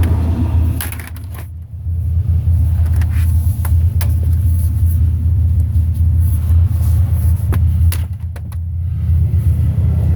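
Steady low rumble, with scattered clinks and knocks of scrap metal being handled.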